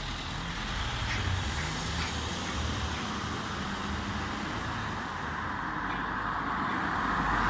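Street traffic running steadily, with a low engine hum, and road noise swelling near the end as a vehicle draws closer. A few faint short calls from a Eurasian magpie sound over it.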